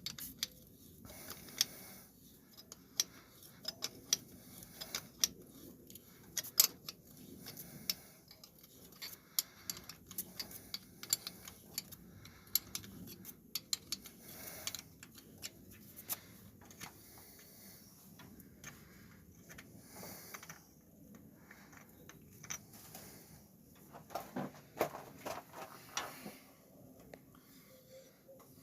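Metal hand tools clicking and clinking against each other and against the engine in an irregular run of sharp taps, busier near the end.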